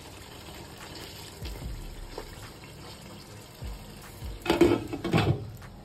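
Wooden spatula stirring and lifting thick cooked mutton masala in a nonstick pot, over a faint steady wet sizzle. Two loud, short clatters of pot or utensil handling come near the end.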